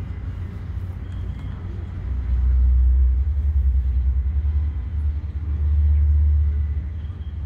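Deep low rumble from an outdoor sound system playing the projection show's soundtrack. It swells twice, about two seconds in and again near five seconds, then fades back.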